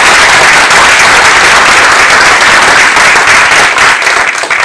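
Audience applauding loudly, a dense, steady mass of clapping.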